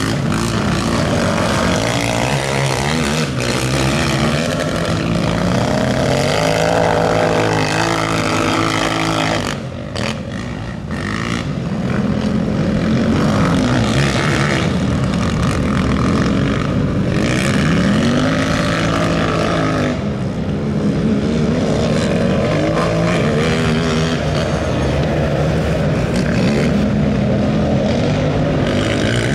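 Several racing quads with engines over 450 cc revving hard around a dirt track, their pitches rising and falling as riders accelerate and back off. The sound drops away briefly about ten seconds in, then the engines come back just as loud.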